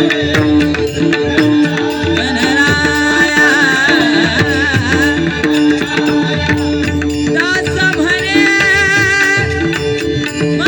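Marathi devotional bhajan music in the gaulan style: tabla-type hand drumming under a steady held drone and a wavering melodic line.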